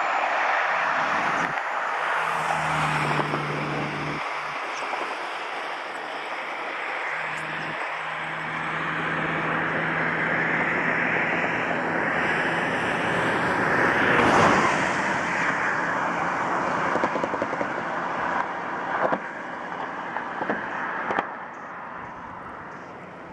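Floodwater rushing down a wadi after rain, a steady rush of water noise. A low steady hum runs under it through the first half, and a few knocks come near the end, after which it drops quieter.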